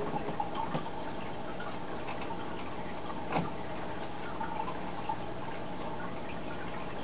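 Steady aquarium water noise with scattered faint ticks and clicks, one a little louder about three and a half seconds in.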